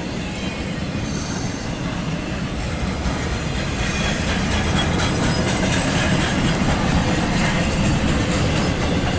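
Norfolk Southern intermodal freight train's container cars rolling past: a steady rumble and clatter of steel wheels on rail that grows slowly louder, with a faint high wheel squeal from about halfway through.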